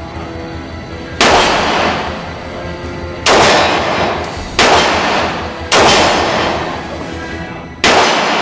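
Five pistol shots from an H&K USP Compact in .40 S&W, fired at an uneven pace, each followed by a long echoing tail in the indoor range.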